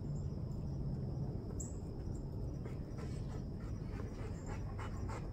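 Steady outdoor background noise: a low rumble with a faint, steady high-pitched tone over it, and a few faint light ticks in the second half.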